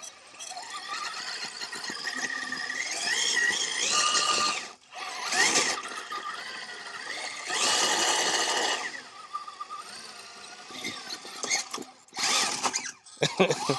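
Axial SCX6 RC crawler's electric motor and drivetrain whining in repeated throttle bursts, the pitch rising in several of them, with quieter pauses between.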